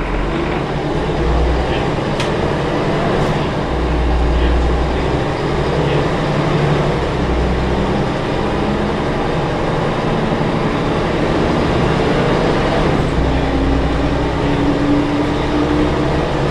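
Mercedes-Benz OM 407 h naturally aspirated 11.4-litre inline-six diesel, rear-mounted in an O405 bus, heard from inside the cabin near the rear as the bus drives, with a low rumble throughout. The engine pitch climbs steadily over the last few seconds as it revs up.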